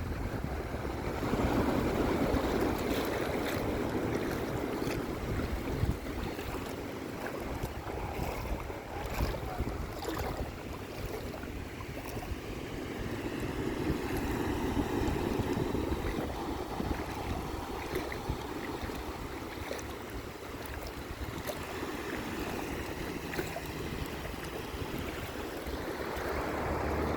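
Sea waves washing in, a steady rush that swells and fades slowly, with wind buffeting the microphone underneath.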